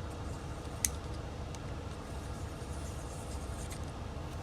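Snap ring pliers working the retaining snap ring out of a Streamlight Stinger HL flashlight: one sharp metal click a little under a second in and a few faint ticks, over a steady low hum.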